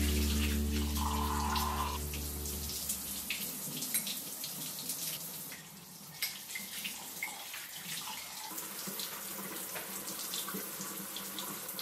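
Kitchen faucet running into the sink as dishes are rinsed by hand under the stream, with occasional light knocks of dishes. Music fades out over the first few seconds.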